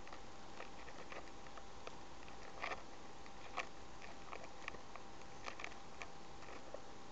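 Faint, irregular small clicks and taps over a steady hiss: fingertips tapping and swiping on an iPod touch's touchscreen, with a couple of slightly louder taps in the middle.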